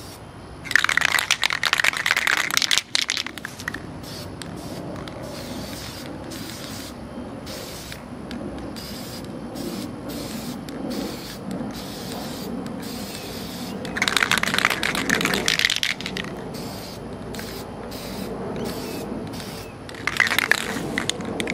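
Aerosol spray-paint can spraying black paint in three hissing bursts of about two seconds each: one near the start, one about 14 seconds in, and one near the end.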